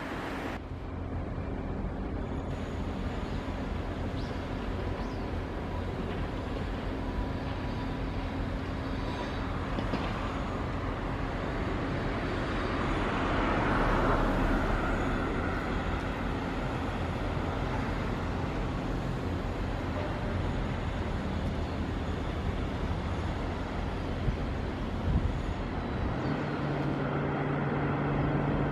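Shipyard ambience: a steady low machinery hum under a wash of outdoor noise. It swells louder about halfway through and then eases, with a couple of short knocks near the end.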